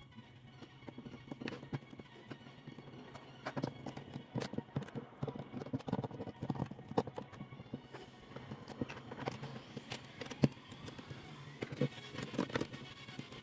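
Plastic LEGO pieces and minifigures clicking and tapping as hands handle them and press them onto a baseplate, in irregular sharp clicks.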